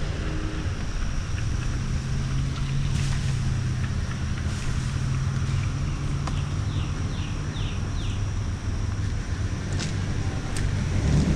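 Car driving slowly on wet pavement, heard from a roof-mounted camera: a steady low engine and road hum with tyre noise and wind on the microphone. Four short high chirps come in a quick run past the middle, with a few faint clicks.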